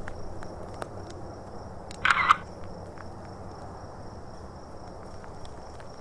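Crickets or other night insects chirring steadily in a high, slightly pulsing tone, with a few faint clicks. About two seconds in, a short, louder noise of under half a second stands out.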